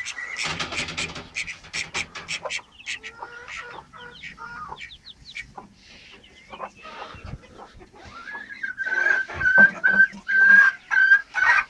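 Silkie chickens clucking, with high, short chick peeps among them; in the last three seconds a hen gives a run of about eight loud, short calls.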